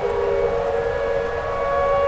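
Outdoor tornado warning siren sounding a sustained wail, holding a steady pitch and growing louder near the end.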